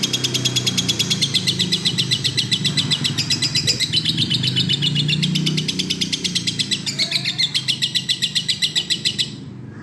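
Lovebird singing a long, unbroken chattering trill of rapid, high repeated notes, about eight a second, which stops abruptly near the end.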